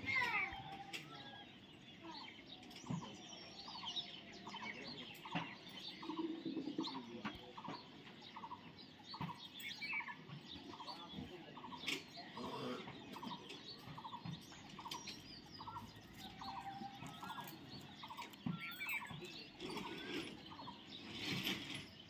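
Parrots chattering and chirping, one of them repeating a short call over and over, about one and a half times a second, with a few sharp clicks in between.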